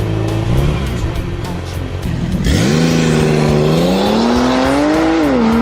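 Race car engine sound effect revving. About two and a half seconds in, a sharp rise in pitch, then a hold, a further climb, and a drop near the end.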